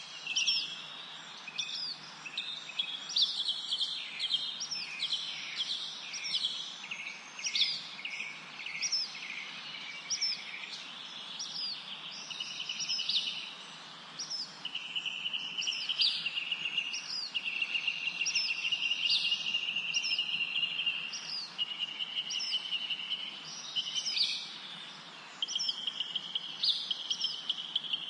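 Several birds calling together: short high chirps throughout, with long trilling notes in the second half.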